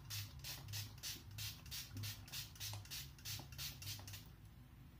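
A small plastic fine-mist spray bottle pumped rapidly, about three to four short hissing sprays a second, misting water onto a face; the spraying stops a little after four seconds in.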